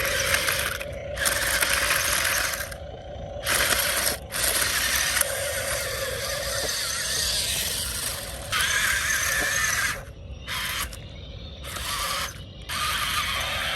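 Machinery clattering and rasping in loud bursts, each a second or two long, that start and stop abruptly, over a steady low hum.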